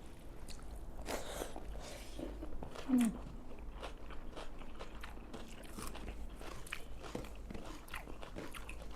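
A person eating: chewing and biting food, with many small crisp crunching clicks. A brief murmur of the voice about three seconds in.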